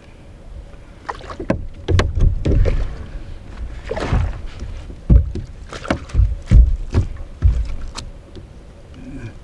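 Knocks and thumps against a canoe's hull as gear is shifted around inside it, about a dozen irregular strikes, with a rustle about four seconds in.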